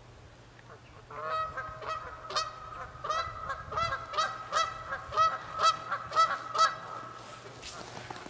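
Canada geese honking, a run of short calls at about two a second that starts about a second in, grows louder, and dies away near the end.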